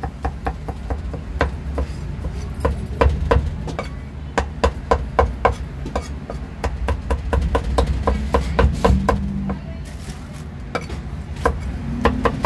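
Rectangular cleaver chopping braised pork on a thick round wooden chopping block: quick, sharp knocks of the blade into the wood, about three to four a second, with a short break about ten seconds in.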